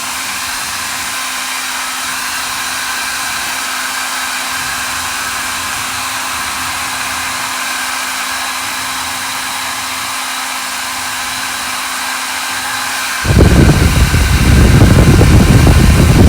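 Xiaomi Mi Ionic H300 hair dryer running: a steady whirring hiss with a faint steady hum. About 13 seconds in, a much louder, low rushing noise joins it suddenly.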